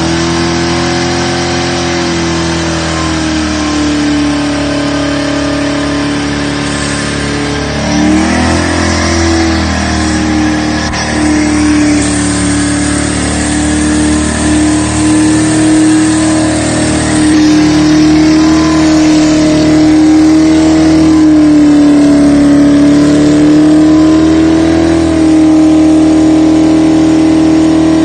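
Holden 5.0-litre 304 V8 held at high revs in a burnout, with the spinning rear tyres squealing under the engine. The revs sag and wobble about eight seconds in, then hold steady and get a little louder.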